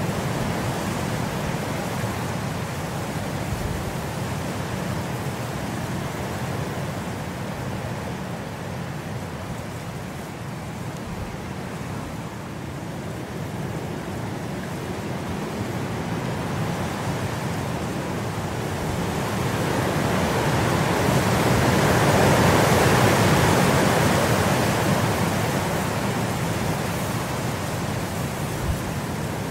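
Steady hiss of rain, an even noise that swells louder about two-thirds of the way through and then eases back.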